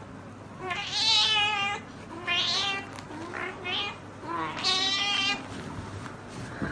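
A cat meowing: four drawn-out, wavering meows in a row, the third shorter and fainter.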